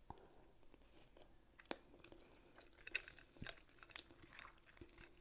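Faint chewing of linguine with clams and scallops, with soft wet mouth sounds and a few sharp clicks, the clearest a little under two seconds in.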